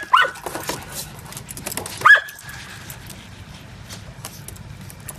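A small dog barking in short, sharp, high-pitched yips: two quick ones at the start and another about two seconds in.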